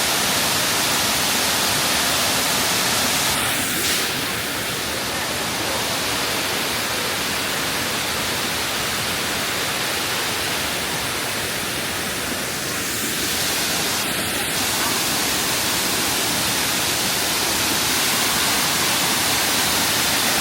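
Steady rushing of a waterfall, an even hiss of falling water that eases slightly for several seconds in the middle.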